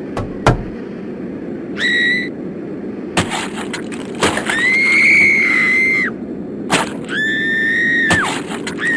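Three held, high-pitched squealing cries, the middle one longest, with a shorter one at the very end, over a steady low rushing noise, with sharp clicks and cracks in between.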